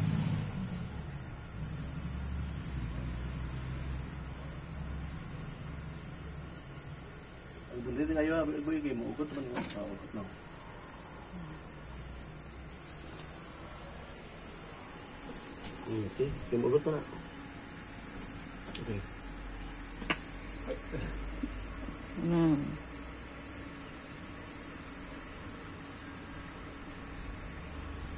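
A steady, high-pitched chorus of chirping insects. A few short pitched calls cut in: about eight seconds in, around sixteen seconds, and near twenty-two seconds. A single sharp click comes about twenty seconds in.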